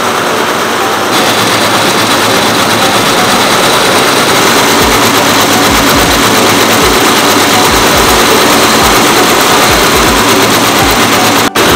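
Multi-head computerized quilting machine running at speed, its long row of needle heads stitching together in a loud, steady mechanical din.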